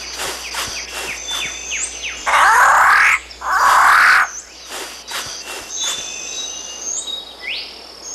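Two loud, harsh rasping sounds of about a second each, from a riflebird (bird of paradise), over a steady rainforest chorus of insects and high, chirping and whistling birds.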